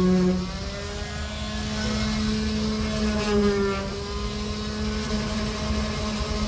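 Motor of a small handheld electric power tool, held against the truck's painted bed side, running with a steady whine. Its pitch steps up slightly about half a second in and wavers a little a few seconds later as the pressure on the panel changes.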